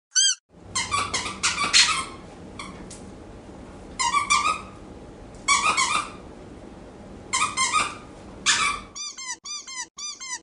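Squeaky dog toy squeezed in short clusters of squeaks with pauses between, over a steady background hiss. Near the end the hiss stops and a quick run of short squeaks follows.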